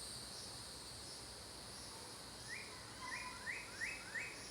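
A steady, high-pitched insect chorus with a regular pulsing trill, and a bird giving about five quick rising chirps in the second half.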